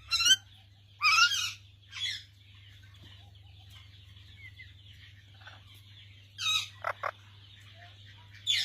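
A green parrot giving short calls: three in the first two seconds, the middle one the longest, then a pause of about four seconds and three more near the end, the last two quick and sharp.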